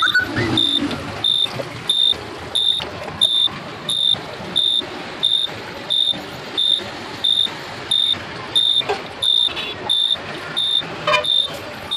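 The buzzer of an Arduino irrigation controller beeps a short high tone about one and a half times a second: its alarm that the soil is dry and the water tank is empty. Water being poured through a plastic funnel into the tank splashes underneath.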